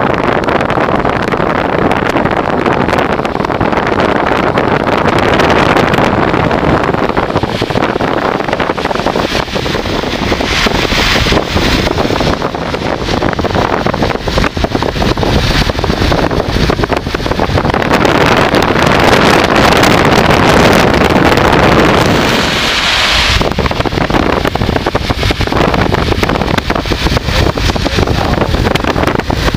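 Strong, gusty storm wind from a nearby supercell thunderstorm buffeting the microphone: a loud, unsteady rushing roar that swells and eases, strongest about two-thirds of the way through before easing suddenly.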